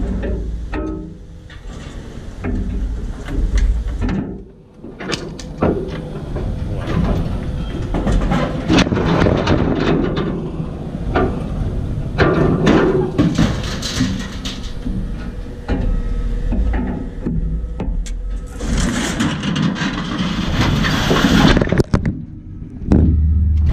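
Scrap truck on the move, its body and load of scrap metal rattling and clanking, with many sharp knocks.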